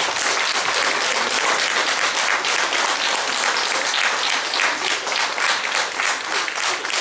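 Audience applauding, the clapping growing more separate in the second half.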